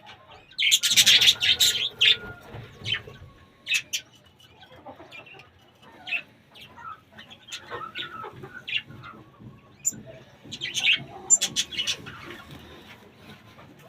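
Caged pet birds chirping and calling, with a cluster of loud, harsh calls about a second in and another near eleven seconds.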